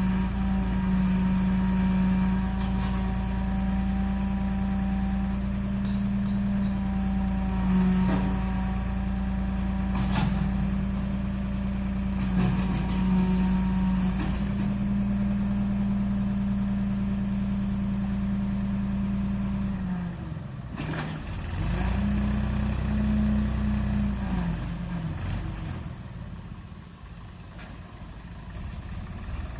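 Backhoe diesel engine running steadily, with a few clanks. About two-thirds of the way through the engine note drops away, comes back briefly, then dies down near the end.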